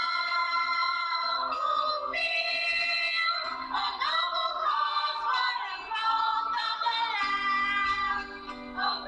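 Background music: a song with a sung lead vocal over instrumental backing.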